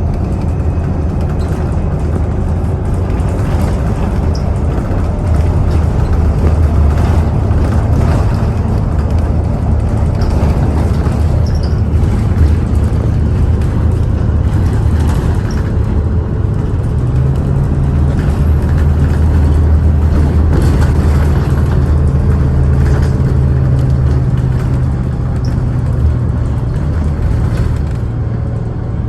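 Bus engine running steadily under way with road noise, its low hum stepping up in pitch about seventeen seconds in.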